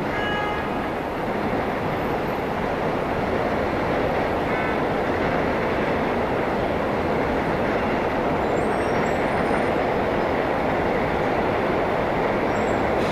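Elevated subway train rumbling along the steel viaduct, heard with street traffic, the sound growing a little louder over the first couple of seconds. Two brief high tones sound near the start and again about four seconds in.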